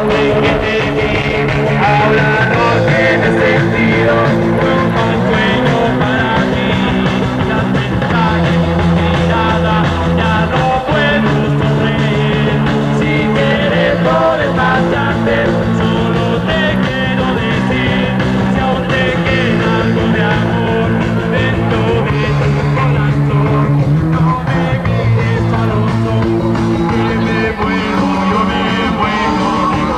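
Live rock band playing a song: electric guitars, bass and drums with a steady beat, the melody wavering above the held chords.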